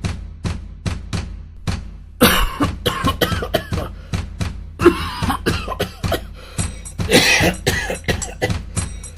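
A steady drum beat at about three strokes a second, joined about two seconds in by repeated loud coughing that goes on over the beat.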